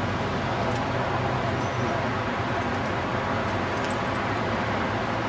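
Steady outdoor background noise: an even hiss and low rumble with no distinct events.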